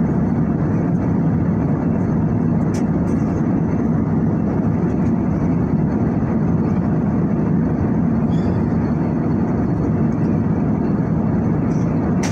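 Steady low rushing cabin noise of a jet airliner in cruise: engine and airflow noise heard from inside the passenger cabin, unchanging throughout.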